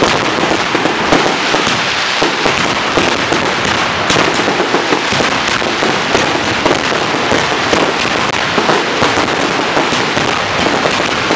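Fireworks barrage at close range: many shells bursting in quick succession, a dense, unbroken crackle of overlapping bangs with no pause between them.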